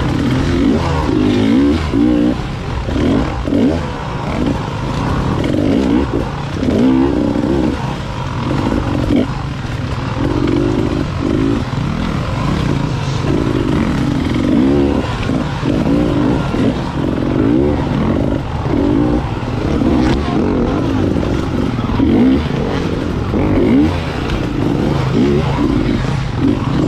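Enduro motorcycle engine revving up and down over and over in short bursts of throttle, as on a tight SuperEnduro course.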